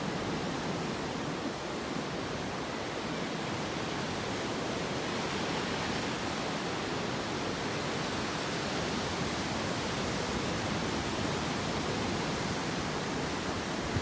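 Heavy typhoon surf breaking on the beach: a steady, even rush of noise with no single wave standing out.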